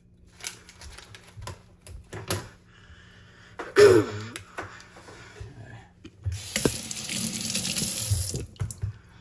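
Kitchen tap running into a stainless steel sink, a steady hiss of water for about two seconds that starts a little past six seconds in. Before it come light clicks of handling, and a brief loud sound falling in pitch near four seconds in.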